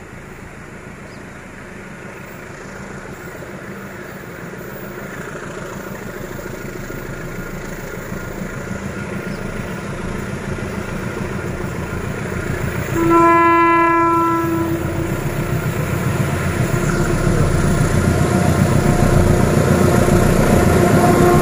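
Diesel locomotive hauling a loaded clinker freight train uphill, its engine working hard and growing steadily louder as it approaches. One horn blast about two-thirds of the way through, about a second and a half long.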